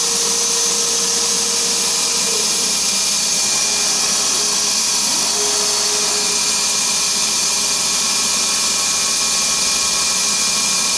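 Dongshin Drillmaster machine running steadily, a continuous loud hiss with a faint hum whose pitch briefly wavers about two seconds in and again about five seconds in.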